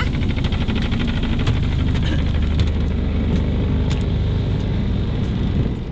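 Steady engine drone with a low hum, and a fast rattle over it during the first couple of seconds.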